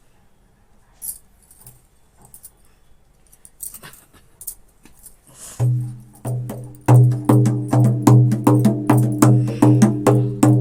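Scattered faint clicks and knocks, then a little past halfway a folk percussion accompaniment starts up: a low pitched drum tone with sharp, evenly spaced strikes, settling into a steady beat of about two to three strikes a second.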